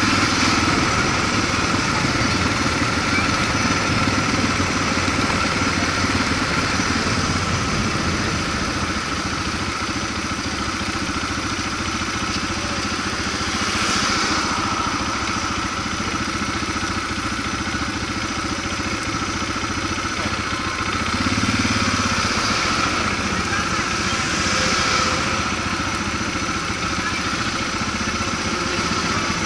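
Suzuki DR650's single-cylinder four-stroke engine running at low speed, heard through a helmet-mounted camera, steady with a few brief swells.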